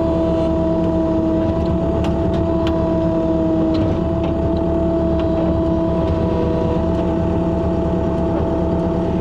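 Engine of a loader running steadily at working speed, with a few light clicks and knocks.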